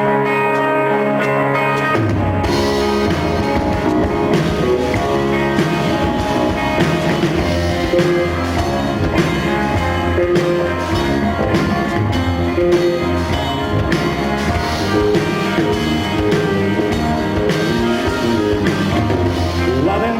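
Live rock band playing a song's instrumental intro: guitar chords ring alone at first, then drums and bass guitar come in about two seconds in, and the full band plays on.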